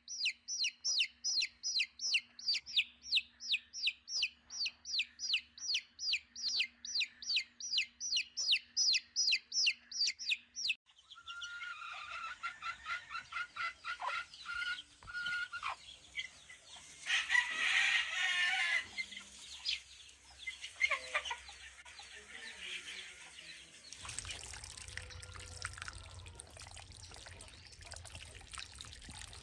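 Newly hatched chicks peeping steadily, about three high peeps a second, for the first ten seconds, then cutting off. After that, chickens clucking and calling in a flock. Near the end, a steady rush of water pouring from a pipe into a shallow pond.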